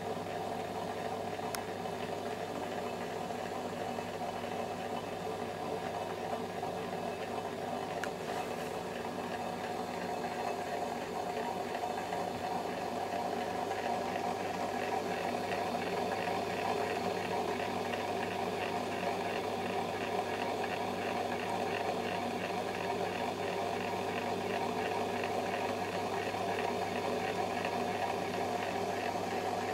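Heidolph 2020 overhead laboratory stirrer running steadily, its motor and gearbox making a constant whir over a low hum as it turns a six-hole paddle stirrer in water. The whir gets slightly louder about halfway through.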